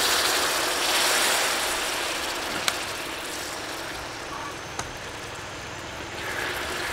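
Stew sauce sizzling and bubbling at a boil in a metal pot, a steady hiss that is loudest in the first second or two as soy sauce is poured in, then eases. Two sharp clicks partway through.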